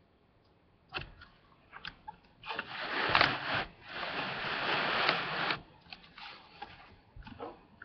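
Close rustling and handling noise, loudest for about three seconds in the middle, with a few light clicks before and after.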